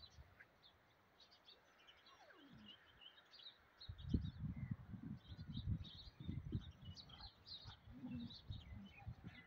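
Small birds chirping faintly in the background. About two seconds in there is a single falling squeal, and from about four seconds in there are irregular low rumbling thumps.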